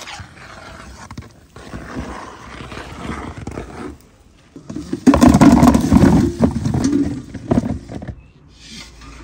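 Green apples tumbling out of a tipped enamel bucket into a plastic bowl, a loud rumbling clatter of many fruits landing at once about five seconds in that lasts a few seconds. Before it comes quieter scuffing, as of footsteps on a dirt yard.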